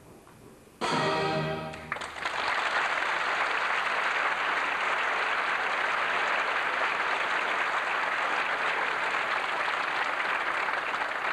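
A brief orchestral chord about a second in, then audience applause that carries on steadily.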